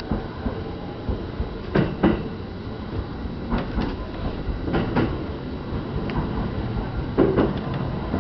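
Running rumble of an E231 series electric train, with its wheels knocking over rail joints or points in quick pairs, four times.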